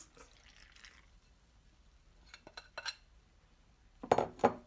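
Metal spoon scraping and knocking against glass mixing bowls while pouring in the yeast mixture and stirring it into flour: a few light clicks, then two louder knocks near the end.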